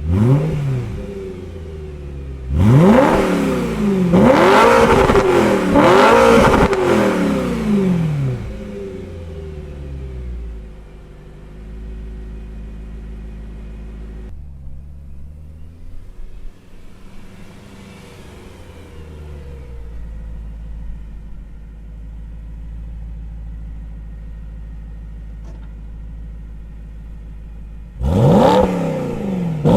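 BMW E92 M3's V8 through a Borla ATAK exhaust with venturis fitted, blipped from idle several times, revs rising and falling sharply, then idling. After a cut, the same car, now without venturis, runs steadily and then accelerates hard near the end.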